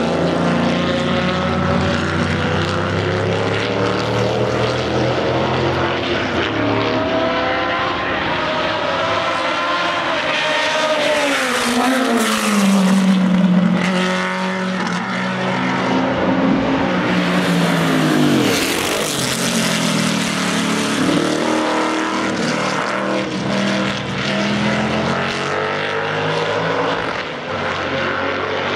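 Several historic sports racing cars lapping at speed, their engine notes overlapping and rising and falling as they pass, with a loud pass-by about twelve seconds in and another near nineteen seconds, each dropping in pitch as the car goes by.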